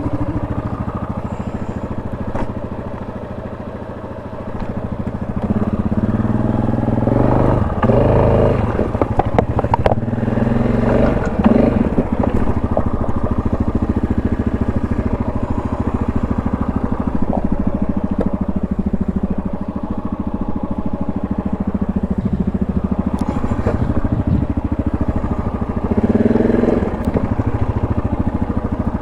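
ATV engine running, revving up in spells about a quarter of the way in and again near the end, with scattered knocks as the machine works over rough ground.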